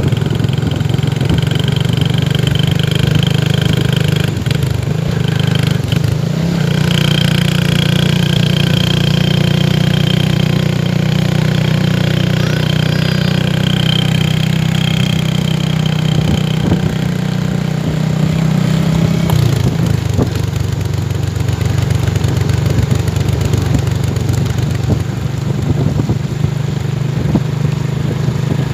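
Small motorcycle engines running steadily on the move, with a steady low hum. The pitch of the hum shifts down about two-thirds of the way through. A higher steady whine runs through the first half.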